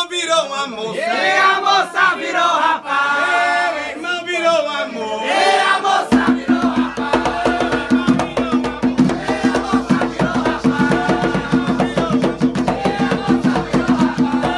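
A ritual chant (ponto) of the Jurema/Umbanda tradition sung by a solo voice. About six seconds in, drums and percussion come in with a fast, steady beat, and the chant goes on over them.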